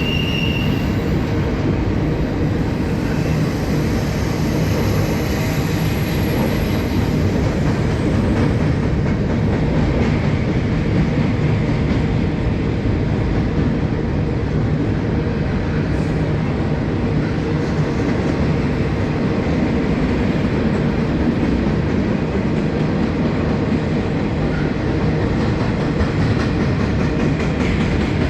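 Freight train rolling past with the steady rumble of rail cars and wheels on the track. A brief high wheel squeal fades out about a second in.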